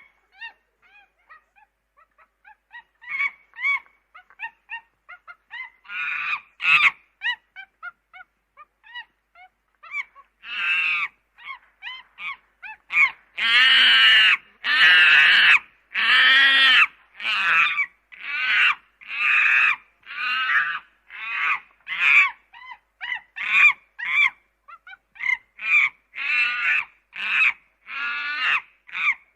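Monkey calling: a run of soft, short chirps, then long loud calls about halfway through, then quick repeated calls of about one a second.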